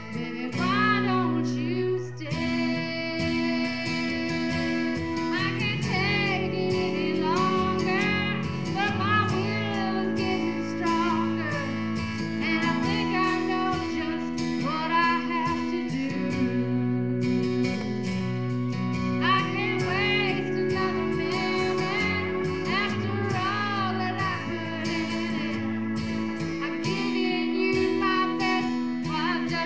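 Live music: a woman singing over guitar accompaniment.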